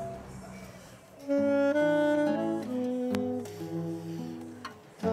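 Instrumental music: after a quiet second, a melody of held notes on several instruments begins, pauses briefly near the end, and a new phrase starts.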